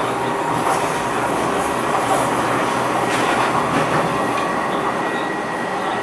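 DLR B2007 Stock light-rail train running along the track, heard from inside the carriage: steady rolling noise with a few faint knocks from the wheels on the rails.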